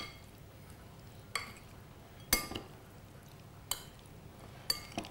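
Metal spoon clinking against a glass bowl as a chopped salad is stirred: sharp, ringing clinks roughly once a second, the loudest a little over two seconds in.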